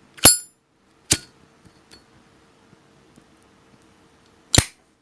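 Zippo lighter's hinged metal lid clicking: three sharp metallic clicks, the first with a brief high ring, the others just after a second and near the end.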